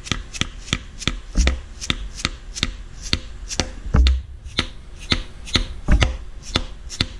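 Hammer tapping repeatedly on the pressed-in centre stud of a Porsche Boxster S IMS bearing, driving it out into the hollow intermediate shaft so the bearing can be pulled. Sharp, steady taps at about three or four a second.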